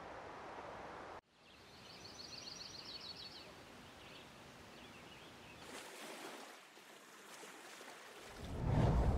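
Layered sound-effect ambience: a steady rushing noise cuts off abruptly about a second in, giving way to a softer noise bed with a brief rapid high chirping trill. Near the end a loud low rumble swells up and fades.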